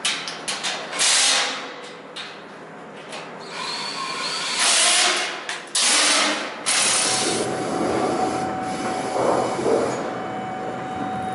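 Workshop teardown noise: scattered knocks and clatter of things being handled, with several short loud bursts of noise. From about seven seconds in, a steady low rumble with a thin steady hum takes over.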